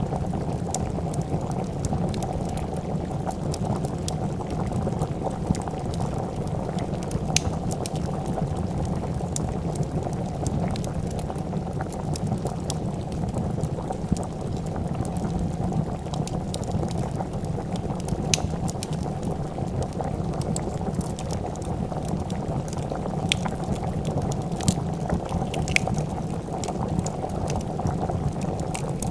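Pot of soup bubbling steadily at a boil, with scattered sharp crackles and pops of a wood fire over it.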